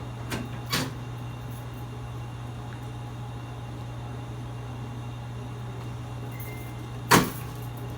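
Chiropractic adjustment: two faint knocks just under a second in, then one sharp crack near the end, over a steady low hum.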